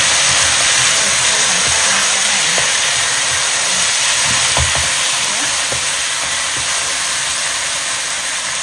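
Pork liver sizzling in hot oil in a wok as it is stir-fried, with a spatula now and then scraping and knocking against the pan. The sizzle eases slightly toward the end.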